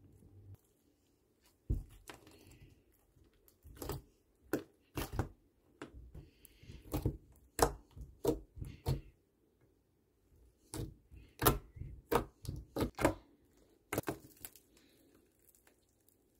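Clear slime with glitter, sprinkles and flower beads being squeezed, poked and stretched by hand, giving irregular sharp clicks and pops. They start about two seconds in and pause briefly partway through.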